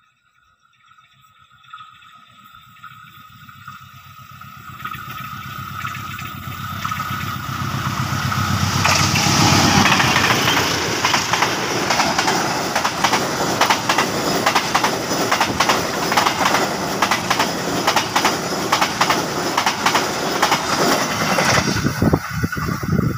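Diesel-hauled KAI passenger train approaching and running past close by. Its rumble builds from faint to loud over the first several seconds, then gives way to a rapid, continuous clatter of wheels over the rail joints as the coaches go by.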